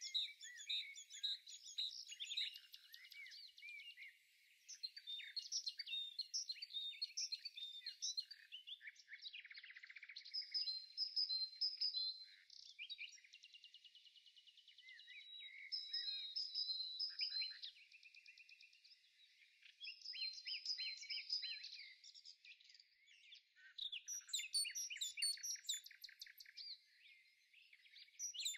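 Small songbirds chirping and twittering, many short calls and rapid trills overlapping, coming and going in waves.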